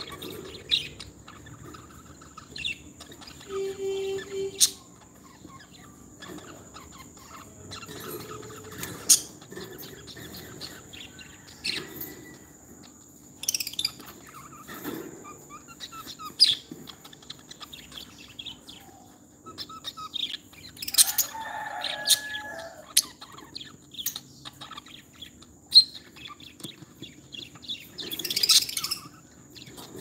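Pet lovebirds chirping: short, shrill calls every second or two at irregular intervals, with a louder cluster near the end, over a steady high-pitched whine.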